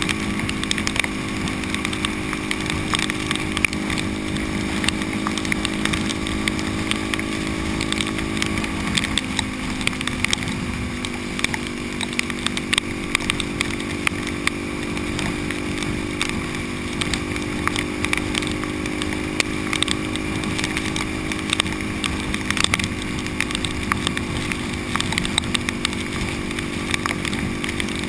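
Supermoto motorcycle engine running steadily at highway cruising speed, its pitch sinking slightly about nine seconds in and then holding, under a constant hiss of wind and spray from the wet road.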